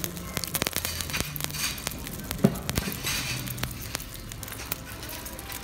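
Masala omelette batter frying in hot oil in a pan, sizzling with many sharp crackles and pops. One louder pop or knock comes about two and a half seconds in.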